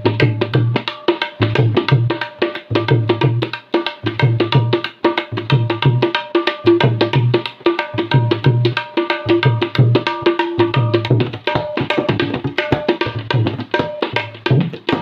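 Tabla played fast in a Punjabi dhol-style rhythm: rapid ringing strokes on the treble drum over regular deep bass strokes on the bass drum. It stops abruptly near the end.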